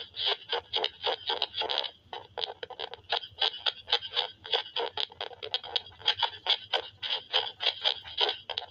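Electronic static from a small box speaker: rapid, irregular crackling bursts, several a second.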